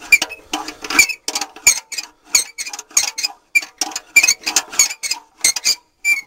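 Rhythmic short clicking and squeaking sounds, about two a second, forming the opening beat of an electronic music track.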